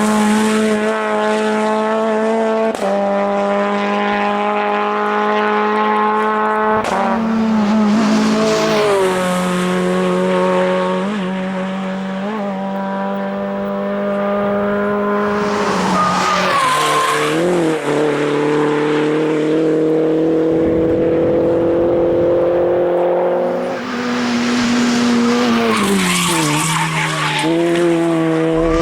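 Racing car engine running hard at high revs, its pitch dropping in steps at gear changes and climbing slowly as it accelerates between them.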